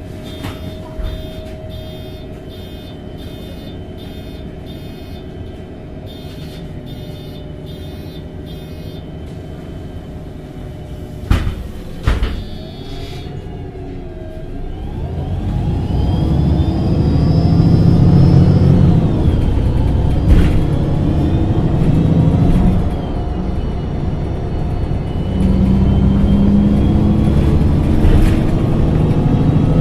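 MAN NG273T4 articulated bus with an LPG engine idling at a stop while a high beep repeats about twice a second, then two loud knocks as the doors shut. The engine then rises as the bus pulls away, dips once at a gear change and climbs again.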